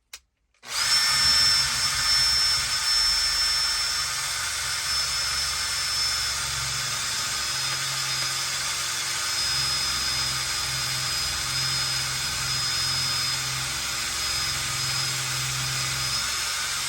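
Electric drill running steadily, boring a hole through a fabric bag strap into the wood beneath. It starts about a second in, with a steady high whine over the grinding, and cuts off near the end once the bit is through.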